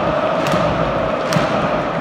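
Large stadium crowd of football supporters chanting together, with a regular drum beat about once a second.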